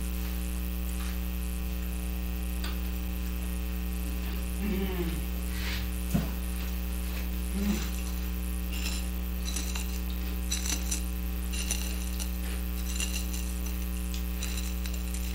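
Steady electrical mains hum throughout. In the second half comes a soft, crackly rustling of crushed Hot Cheetos as a pickle is pressed and rolled in them. Around the middle there are a couple of short hummed vocal sounds and a single sharp tap.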